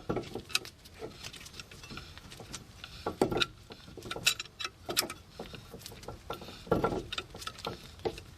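Steel C-clamp being screwed down to push a brake caliper piston back into its bore: irregular metal clicks and clinks from the turning handle and clamp, in short clusters with pauses between.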